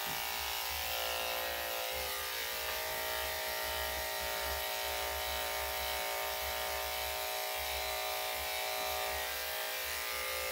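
Electric dog grooming clippers running steadily, their blade freshly oiled.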